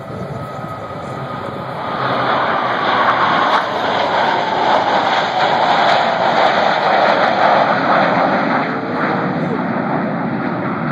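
The Blue Angels' F/A-18 Hornet jets roar past in a tight formation. The roar swells about two seconds in, and a whine falls steadily in pitch as the formation goes by.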